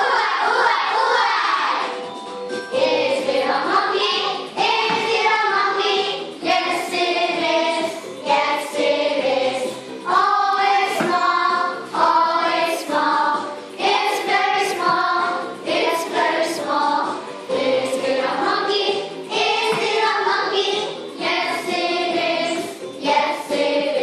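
A class of young children singing a song together in chorus.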